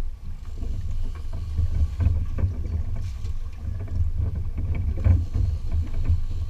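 Wind buffeting the microphone aboard an open center-console fishing boat, heard as a low, uneven rumble with scattered short knocks.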